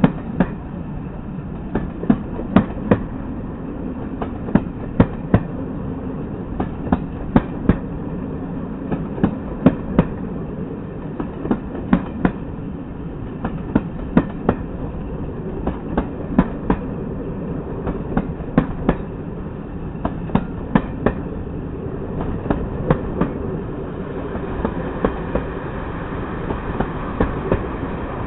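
Coach wheels clicking over rail joints in repeated groups of two or three, a clickety-clack over the steady rumble of a train running along the track.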